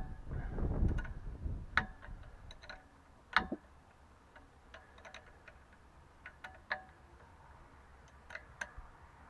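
Scattered light metallic clicks and clinks of tools and engine parts being handled, some ringing briefly, with a louder knock about three and a half seconds in.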